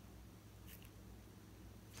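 Near silence: faint steady low hum of room tone, with a couple of faint brief ticks about two-thirds of a second in.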